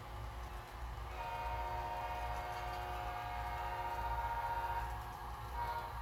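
Diesel air horn from a model locomotive's Tsunami 2 sound decoder, played through its small onboard speaker: one long blast, then a short toot near the end, in the long-long-short-long pattern of a grade-crossing signal. A steady low rumble runs underneath.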